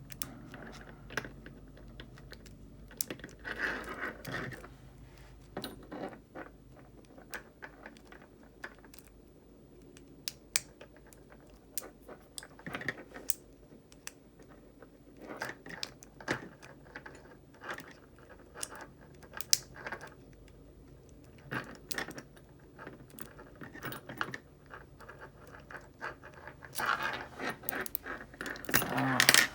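Lock pick and tension wrench working the pins of a Brinks Promax padlock: scattered small metallic clicks and rattles, with a louder flurry of clicking near the end.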